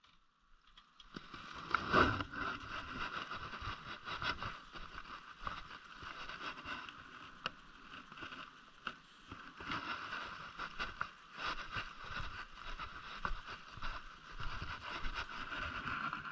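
Cold start of a 2005 Honda CRF250R dirt bike with a freshly rebuilt carburetor: a sharp knock about two seconds in, then its single-cylinder four-stroke engine running, the level rising and falling unevenly.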